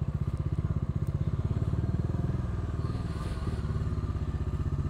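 Bajaj Dominar 400's single-cylinder engine running at low speed as the motorcycle is ridden slowly, a steady, fast train of exhaust beats.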